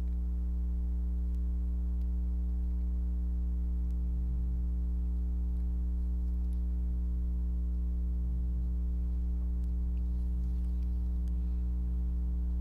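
Steady low electrical hum with evenly spaced overtones, unchanging throughout, with a few faint ticks; the hand-sewing itself is barely heard.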